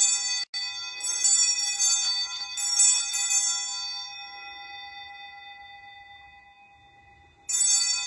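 Altar bells (Sanctus bells) rung at the elevation of the host during the consecration. There are several short peals in the first three seconds, the bright ringing slowly dying away, then another peal near the end.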